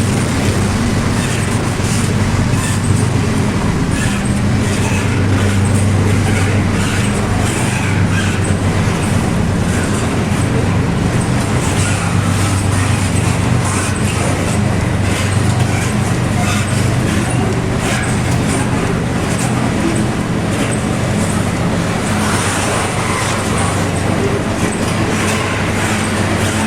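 A pair of GE diesel-electric freight locomotives, an AC44i and an ES44ACi, running through a railway tunnel. Their engines make a loud, steady, deep drone, with rattling and clicking over it and no let-up.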